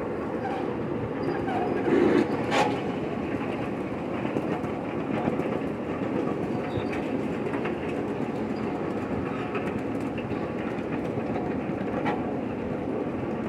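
Train cars rolling along the track, heard from on board: a steady rumble with an occasional sharp clack of the wheels, and a louder swell about two seconds in.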